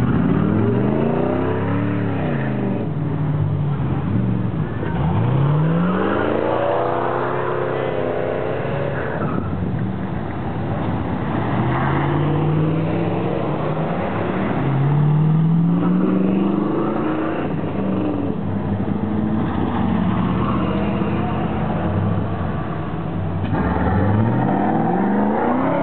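A line of cars, among them third-generation Camaros and Firebirds, and a truck pulling away one after another. Each engine climbs in pitch as it accelerates past, and several pass in turn.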